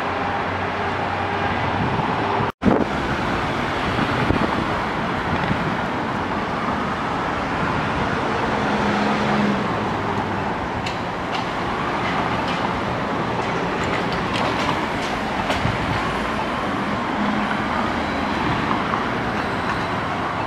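Steady city street traffic, with cars and buses passing, broken by a sudden brief dropout about two and a half seconds in where the recording cuts.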